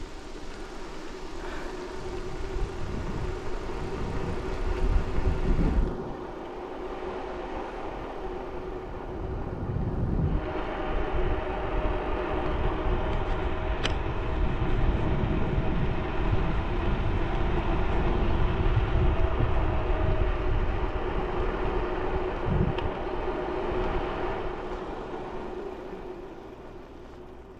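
Wind buffeting the microphone over the rumble of a bicycle's tyres on the road while riding. It grows louder from about ten seconds in and eases off near the end.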